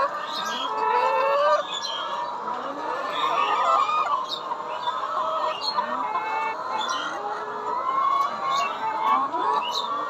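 A flock of caged laying hens clucking and calling over one another continuously, with a few brief clicks among the calls.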